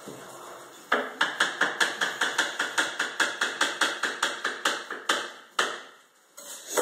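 Kitchen knife chopping a vegetable on a wooden cutting board: rapid, even knocks about four to five a second for several seconds, then a few single taps near the end.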